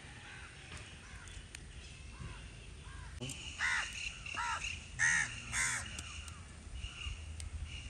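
Crows cawing: a few faint caws early on, then a run of about half a dozen louder caws in the middle.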